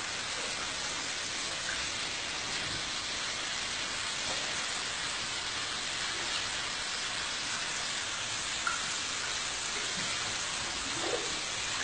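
Bidet tap running, a thin stream of water splashing steadily into the ceramic bowl as an even hiss.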